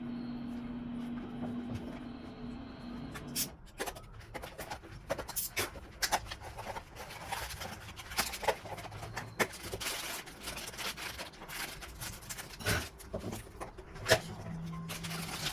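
A boxed figure being unpacked: plastic packaging rubbing and crackling, with irregular sharp clicks and taps. A low steady hum is under the first three seconds.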